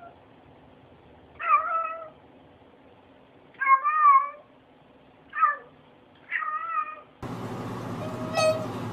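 Domestic cat meowing four times, each call about half a second long with a bending, wavering pitch. About seven seconds in, a steadier background noise starts and a faint short call follows.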